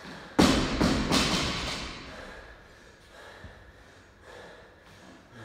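A 50 kg barbell with bumper plates dropped onto the gym floor: one loud thud and two more bounces within the next second, echoing in the large hall.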